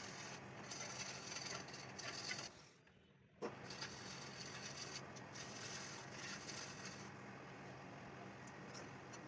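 Wood lathe motor running with a steady hum while a turning chisel scrapes and cuts the spinning wood, giving a hissy scratching sound. The sound drops out briefly about three seconds in, then picks up again with a click.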